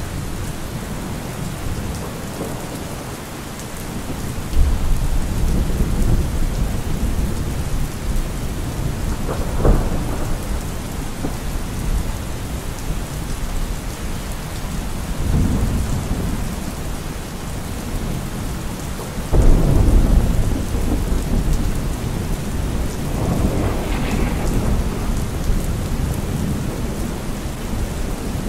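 Thunderstorm: steady rain with rolling thunder. A deep rumble sets in suddenly about four and a half seconds in, and another, the loudest, just before twenty seconds in, with shorter peals around ten, sixteen and twenty-four seconds.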